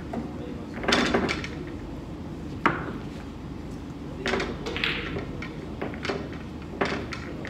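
Pool balls and cue knocking: a handful of separate sharp clicks, the sharpest a little under three seconds in, over steady low background noise.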